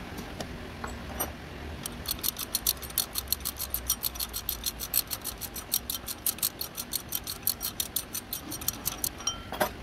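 Hand socket ratchet clicking rapidly, about six clicks a second, as it runs a bolt into the new serpentine belt tensioner, ending with a single louder knock.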